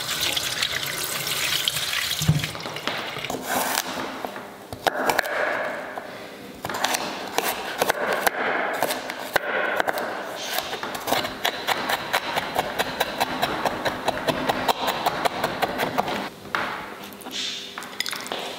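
Tap water running onto salmon steaks in a plastic colander in a steel sink, then a kitchen knife chopping garlic on a wooden cutting board, a quick even run of knocks of about four a second.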